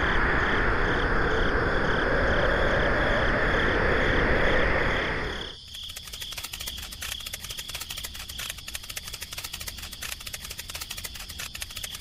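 A strong, even rush of wind blowing debris through the air, which cuts off abruptly about halfway through. A quieter, fast and even clicking with a thin, high steady tone follows.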